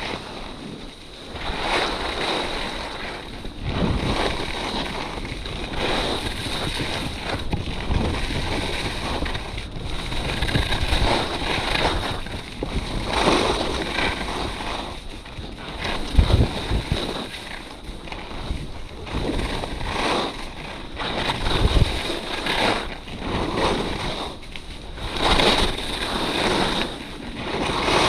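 Edges carving turns down a groomed piste: the scrape of snow swells and fades about every one and a half to two seconds with each turn. Wind buffets the microphone.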